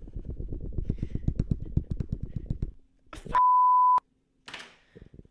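Rapid tapping on a smartphone screen, about ten taps a second, for nearly three seconds. Then a short, steady censor beep, the loudest sound here, bleeps out a swear word.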